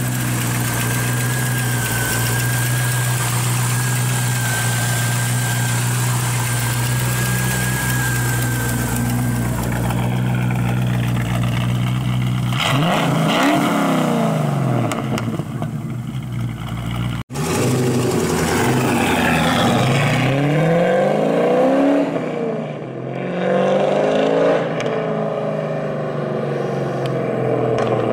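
TVR 400SE's Rover V8 idling steadily, with a thin high whine over it for the first nine seconds or so. About halfway through it is revved in several rising-and-falling sweeps, and it goes on rising and falling in pitch as the car pulls away.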